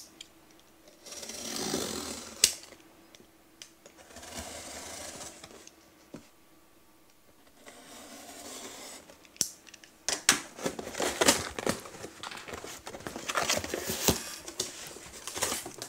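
Utility knife slitting the packing tape on a cardboard box in three drawn-out strokes, then the cardboard flaps being pulled open and the packing inside handled, with a busy run of crackles and clicks.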